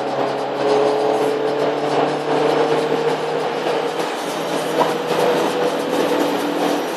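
Steady drone of a Skoda vRS driving at speed, heard from inside the cabin: engine hum under a constant wash of tyre and road noise.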